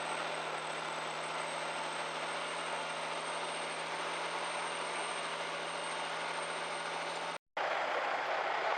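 Diesel truck engine running steadily under road noise, heard from inside the cab, with a thin high whine over it. The sound drops out for a moment about seven seconds in and comes back a little louder.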